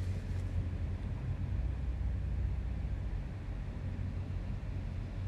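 A low, steady engine rumble.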